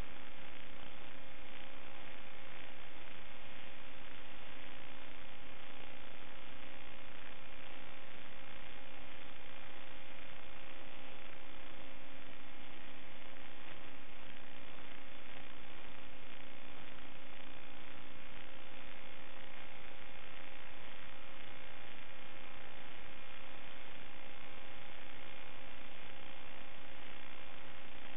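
Steady hiss with a constant electrical hum of several fixed tones, unchanging throughout: the noise of the analog FPV video link's empty audio channel as recorded by the DVR, with no sound of the quadcopter itself.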